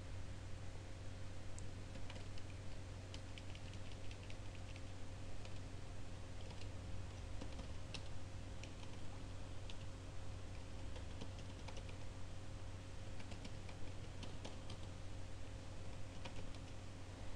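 Computer keyboard typing: scattered keystrokes in short irregular runs, over a steady low hum.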